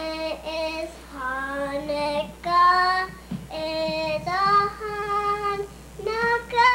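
A young girl singing a Hanukkah song unaccompanied, in long held notes that climb higher near the end.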